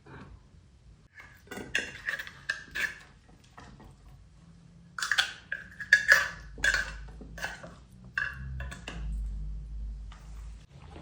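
Hard objects clinking and knocking as they are handled and set down, with a short ring like dishes or bowls, in two runs: a few strikes about two seconds in, then a longer run from about five to eight seconds.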